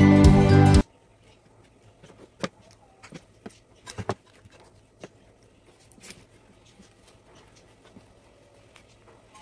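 Background music stops abruptly about a second in. After that come scattered light taps and rustles of rolled magazine-paper strips being handled and pressed down, with a clearer double tap near the middle.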